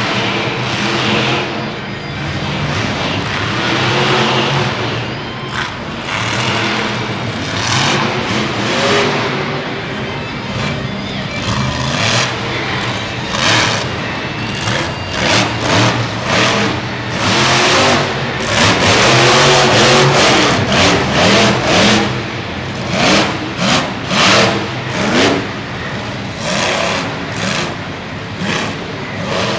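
Monster truck's V8 engine revving up and falling off again and again under hard throttle, with quick repeated full-throttle bursts in the second half.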